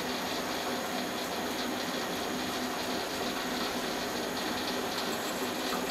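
Metal lathe running steadily, its spindle turning an aluminium casting, with an even whirring hum and a few faint steady tones.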